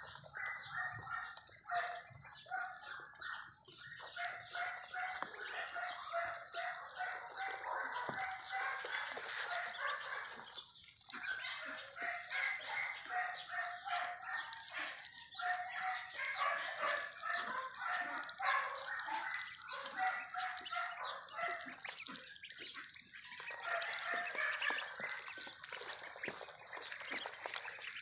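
A flock of ducklings peeping without pause, many short high calls overlapping one another.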